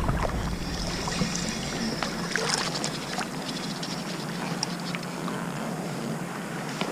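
Fishing boat on the water: a steady low hum under water and wind noise, with scattered light clicks and taps.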